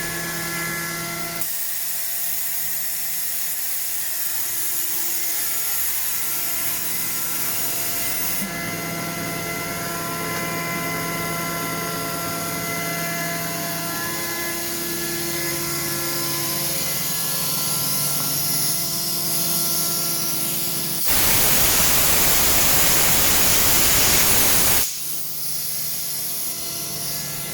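Alup Combi GE 15 11 kW rotary screw compressor running steadily under load as it builds pressure: a mechanical hum with several steady tones over a hiss. About 21 seconds in, a loud blast of escaping compressed air hisses for about four seconds, then stops suddenly.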